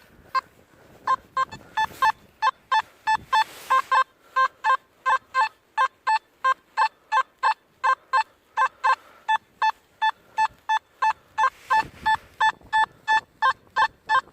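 Nokta Makro Simplex metal detector beeping repeatedly on a buried target: short, evenly spaced pitched beeps, about three a second, starting about a second in.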